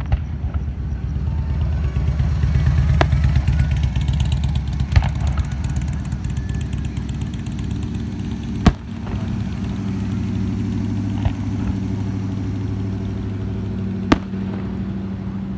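Aerial firework shells bursting with about six sharp bangs spread a few seconds apart, over an engine idling steadily with a low hum.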